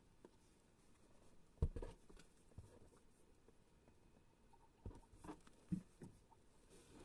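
A few scattered light knocks and handling bumps against a quiet background, the loudest about one and a half seconds in and a cluster of three near the end.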